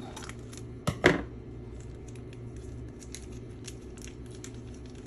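Kitchen scissors snipping through a plastic dressing packet, two sharp cuts close together about a second in, followed by faint crinkling and ticking of the plastic packet as it is handled and squeezed, over a steady low hum.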